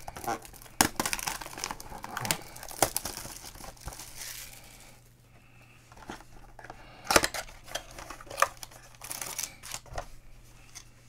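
Plastic shrink-wrap crinkling and tearing as a trading-card box is unwrapped and opened by hand, in irregular crackles and sharp rips. The sound goes quieter for a second or so about halfway, then there is a sharp snap a little after.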